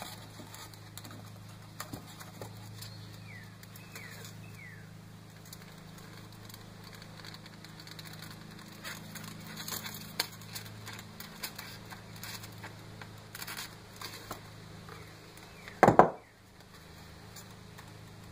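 Faint, scattered clicks and crackles of a foam model airplane being handled and pinned with needle-nose pliers, over a steady low hum. Near the end, one short loud sound that slides down in pitch.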